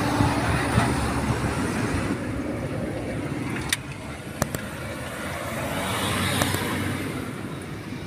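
A heavy diesel engine running steadily, louder in the first half, with a few sharp clicks in the second half.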